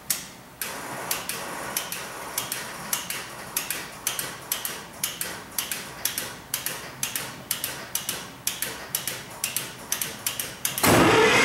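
Regular sharp ticking, about two to three ticks a second, over a faint steady hum while the MEP-004A generator's start switch is being worked. About a second before the end, the generator's diesel engine starts and runs, much louder and steady.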